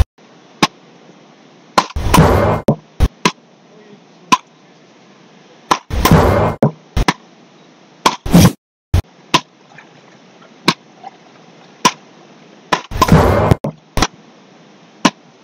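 Beach racket paddles striking the ball in a fast rally: sharp cracks about once a second, back and forth between players. A few louder, half-second noisy bursts come in among the hits, about every two to four seconds.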